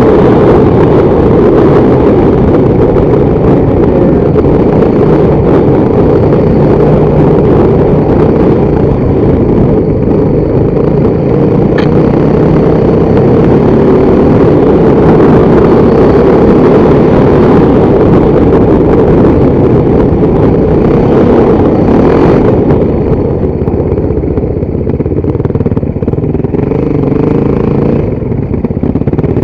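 Motorcycle engine running steadily under way, loud and close.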